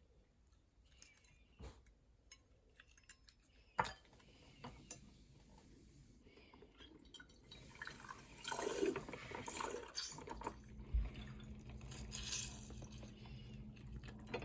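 Lemons squeezed by hand into a glass jar: juice dripping and splattering in irregular bursts, louder in the second half, with a single sharp knock about four seconds in.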